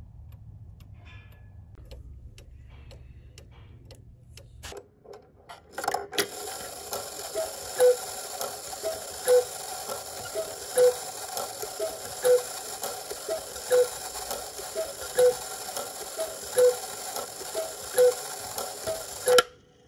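Cuckoo clock mechanism: faint ticks and clicks at first, then about six seconds in the gear train driving the turning dancers starts whirring, with a regular clack about every second and a half, and stops abruptly near the end.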